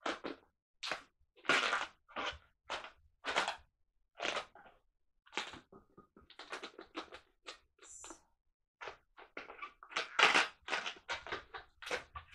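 Latex modelling balloons rubbing and squeaking as they are handled and twisted into shape, in a long run of short, irregular bursts.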